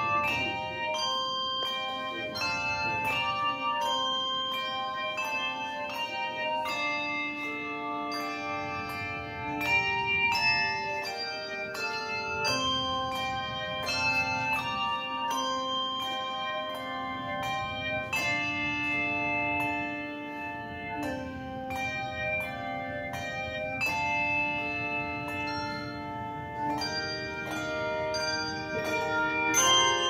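Handbell choir playing a piece: many handbells rung in turn and together, each note ringing on and overlapping the next in chords under a moving melody.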